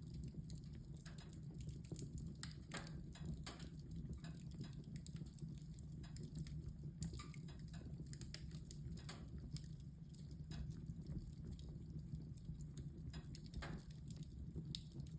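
Wood fire in a fireplace crackling: irregular sharp pops and snaps, about one a second, some in quick pairs, over a low steady rumble.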